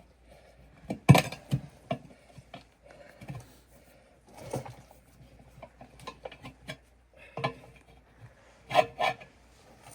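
A tire bar scraping, knocking and clanking against a wheel rim and tire bead as a tire is levered on by hand, in irregular strokes with the loudest knocks about a second in and near the end.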